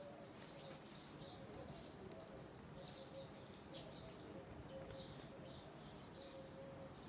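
Palm squirrel giving a series of faint, short, high chirps, irregularly spaced and coming more often in the second half.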